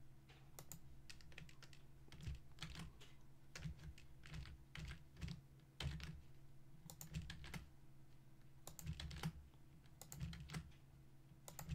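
Computer keyboard keys pressed in irregular clusters of faint clicks as shortcut keys are used, over a low steady hum.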